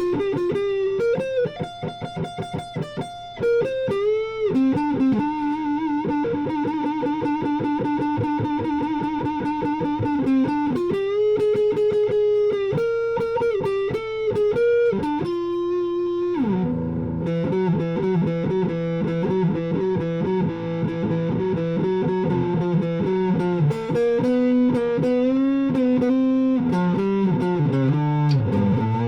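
Gibson Les Paul Tribute electric guitar played through an Orange Crush 12 amp on the neck pickup with the tone knob all the way down, playing melodic lead lines. Fast repeated picked notes run through the middle, and from about two-thirds of the way in it moves to lower, fuller chord-like playing.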